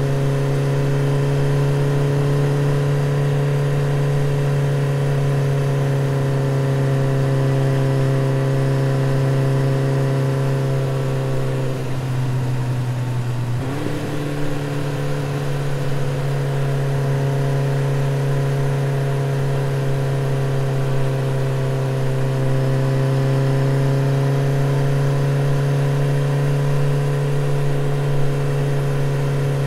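Motorcycle engine running at a steady, even pitch while cruising. About halfway through, the note sags and breaks for a couple of seconds, then picks up again and holds steady.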